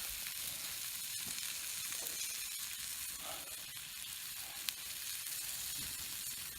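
Food sizzling steadily in a frying pan, with a faint tick about two-thirds of the way through.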